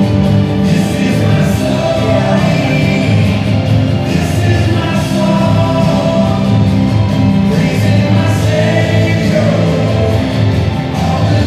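A song with group singing in a choir or gospel style, playing steadily.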